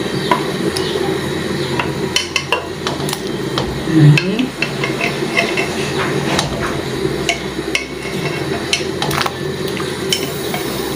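Kitchen utensils clinking, knocking and scraping against a cooking pot as pieces of seared chicken are added to a boiling stew, with a brief louder sound about four seconds in.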